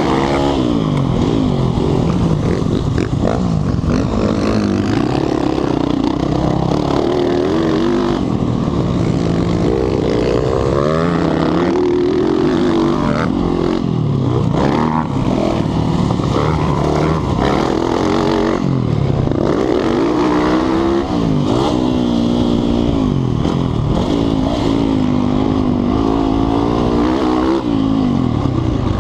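Motocross bike engine heard from on board, revving up and dropping back again and again as the throttle is worked through turns and jumps.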